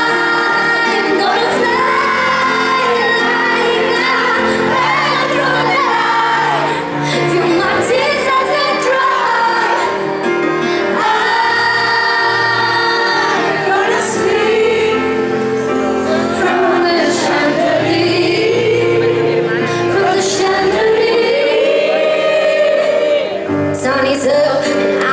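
Live pop music: a woman singing long, held notes into a handheld microphone over an amplified band backing, in a large hall.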